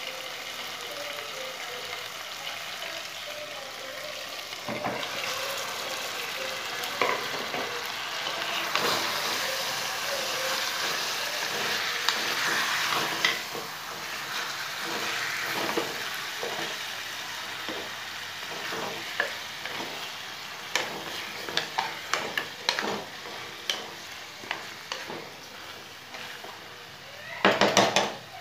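Mutton pieces sizzling in hot oil with onion and tomato in a pressure cooker, stirred with a wooden spatula. From about two-thirds of the way through, short knocks of the spatula against the pot, with a quick loud run of knocks near the end.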